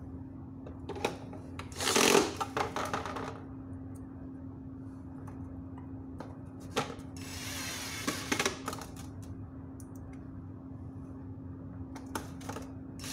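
Cordless electric screwdriver driving screws into an LED street-light housing: a short burst of whirring with clicking about two seconds in, and a second run about seven seconds in, over a steady low hum.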